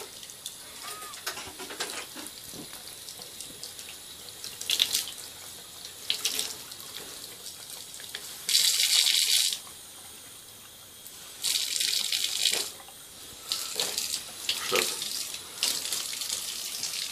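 Bath tap running, a thin stream of water splashing into the bathtub, with two louder stretches of splashing of about a second each around the middle.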